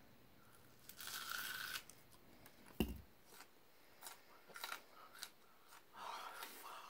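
Someone biting into and chewing a raw onion: faint crisp crunches and wet crackles from the mouth, with a sharp knock about three seconds in.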